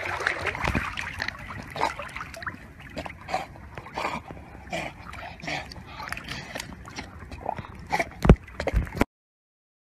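Golden retriever swimming with a ball in its mouth: short, irregular dog sounds over water sloshing. Two sharp knocks near the end, then the sound cuts off.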